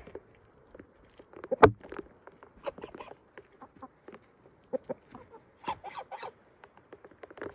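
Chickens foraging: soft short clucks and scattered sharp ticks of pecking at the ground, the loudest tick about one and a half seconds in.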